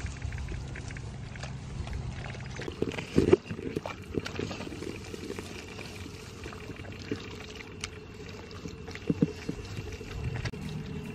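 Bare hands digging and scooping in wet mud, making irregular squelches and slaps, the loudest a few seconds in.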